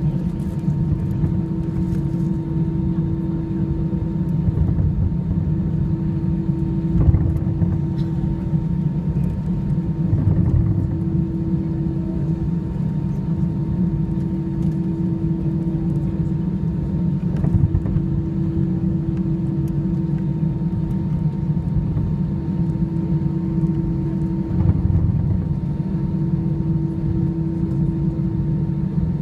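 Cabin noise of an Airbus A320-214 taxiing on its CFM56 engines: a steady low rumble with a constant hum. A few low bumps come through about seven, ten and twenty-five seconds in.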